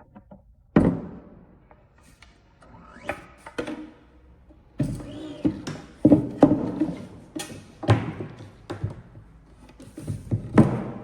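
Hollow wooden knocks and thunks from a folding linden-wood board blank being handled. The blows come irregularly, the loudest about a second in, around the middle and near the end.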